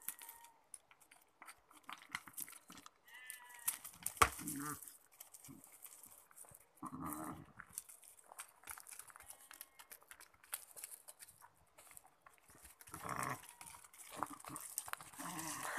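Two rams fighting: one loud, sharp crack of their heads clashing about four seconds in, among scattered scuffs and knocks of hooves on a stony track.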